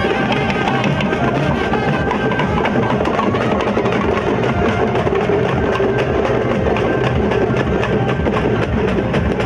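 Music driven by loud, fast, steady drumming and other percussion, the strikes repeating evenly throughout.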